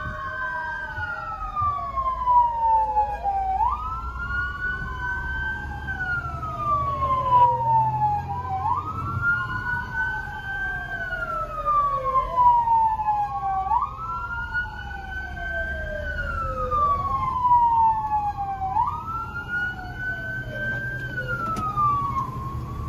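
Two fire truck sirens wailing out of step with each other, each rising quickly and then falling slowly, about every five seconds, over a low engine rumble.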